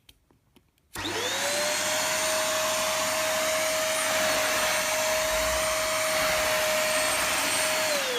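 A few light clicks, then a Home & Co 2-in-1 corded stick vacuum with a 600 W motor is switched on about a second in: the motor spins up quickly to a steady high whine over a rush of air. Near the end it is switched off and the whine starts falling in pitch as the motor winds down.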